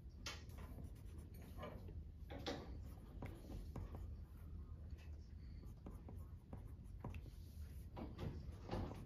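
Pencil writing on paper in short, irregular scratching strokes, over a low steady hum.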